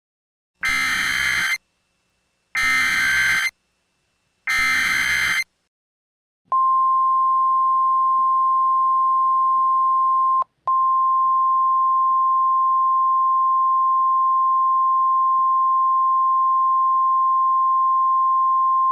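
Emergency Alert System header: three one-second bursts of SAME digital data tones with short pauses between, then the NOAA Weather Radio warning alarm, one steady high tone with a split-second dropout a few seconds after it starts.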